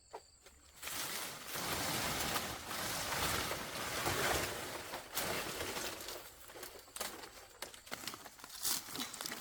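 Rustling, scraping and light knocks of someone climbing up onto a roof. The sound is loudest in the first half, then thins to scattered clicks.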